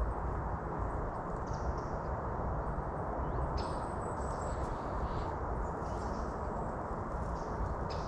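Steady outdoor ambience: an even low noise with faint bird chirps.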